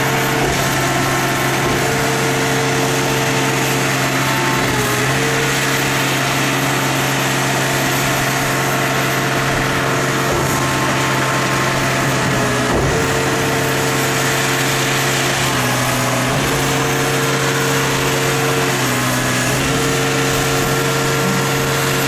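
Engine running steadily to drive a hydraulic system, its note shifting several times as the valves are worked and the hydraulic cylinder lifts and lowers the machine's steel hopper.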